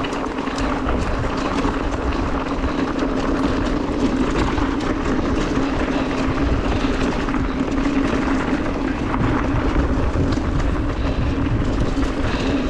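Turbo Levo electric mountain bike rolling fast downhill on a dirt and gravel trail: knobby tyres give a steady droning rumble, with many small clicks and rattles from stones and the bike over the rough ground.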